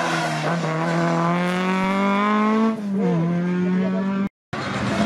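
Ford Escort Mk2 rally car's engine pulling hard at high revs as it passes, its pitch rising slowly. There is a short dip in revs about three seconds in before it climbs again. The sound cuts off abruptly just after four seconds in, and another car's engine follows.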